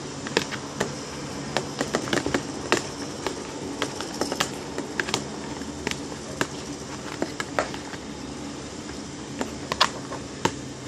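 Fingers working homemade glue-and-soap slime in a clear plastic tub: irregular sharp clicks and taps from the plastic tub and the sticky slime, a few a second, with a few louder ones near the end.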